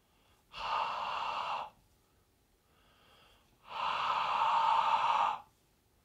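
A man breathing out hard twice onto a carbon dioxide detector held at his mouth: two long breathy rushes, the second longer and louder, with a faint breath drawn in between them.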